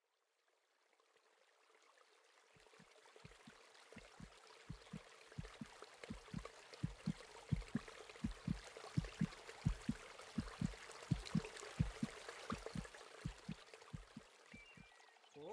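Running water fading in, with a steady run of low thumps about twice a second.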